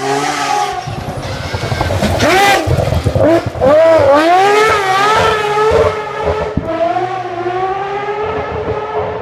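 Naturally aspirated three-rotor Mazda 20B rotary engine in a rally-built Mazda RX8, run hard past the camera. Its pitch climbs and drops several times through the middle as the driver works the throttle and shifts gears, loudest at that point, then settles into a steadier note as the car pulls away.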